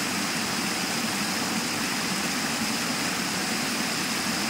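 Shallow water rushing steadily down a sloping rock face, splashing around a person's legs.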